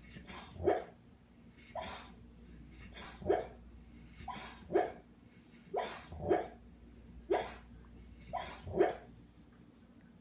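Black Labrador puppy barking in her sleep while dreaming: short two-part barks at a regular pace, about one every second and a half, seven times over.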